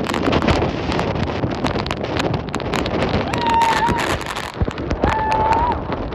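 Strong wind gusts buffeting the microphone in a loud, ragged rush. Partway through, two short steady high whistle-like tones sound over it, about a second apart.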